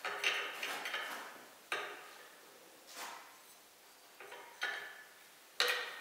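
Sharp metallic clinks and knocks, about eight of them at irregular intervals, as steel parts are handled and tapped at the cylinder bore of a cast-iron tractor engine block during cylinder liner fitting.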